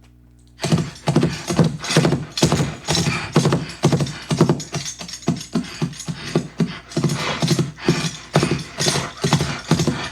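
Foley playback of a horse: hoof props clip-clopping in a quick, dense rhythm, layered with a jingling bridle track and horse snorts voiced by the Foley artist. It starts about half a second in.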